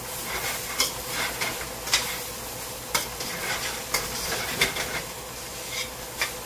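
Fried rice sizzling in a big pan while it is stirred, a cooking utensil scraping and knocking against the pan about once a second.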